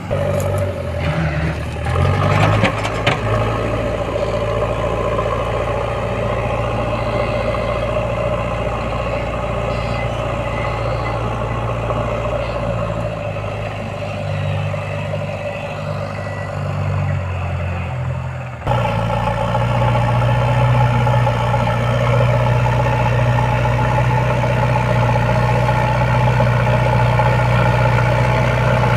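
Backhoe loader's diesel engine running steadily, with a brief clatter of metal about two seconds in. Partway through, the engine sound jumps abruptly louder and stays steady.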